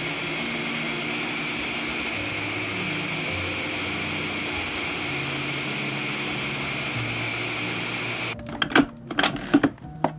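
Ninja countertop blender running steadily, pureeing pineapple chunks with a little water, a steady high whine riding on its rushing hiss. It shuts off about eight seconds in, followed by a few knocks and clicks.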